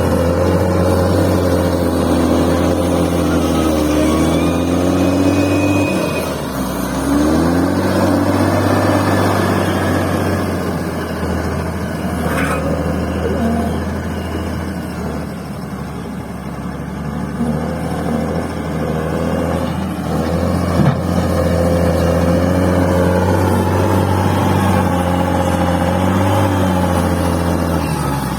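Bulldozer's diesel engine working under changing load while levelling fill soil, its speed sagging and picking up again several times, with a deep dip about six seconds in. A short click comes about two-thirds of the way through.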